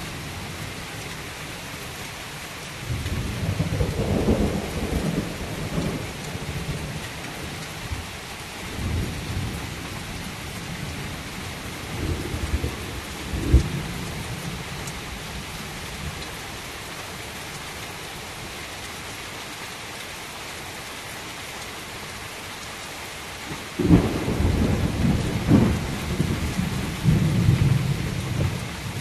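Heavy rain falling steadily, with thunder rumbling several times. There is a short, sharp crack about halfway through, and a loud clap about 24 seconds in that rumbles on for several seconds.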